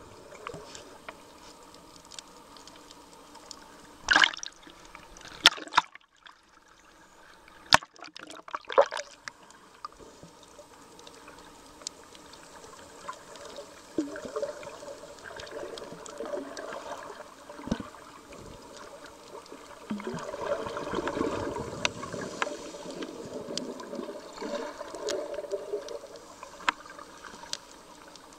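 Water heard underwater through a submerged camera: a steady wash of water noise with a few sharp clicks and knocks, loudest about four and eight seconds in, and a rougher, louder stretch of water noise later on.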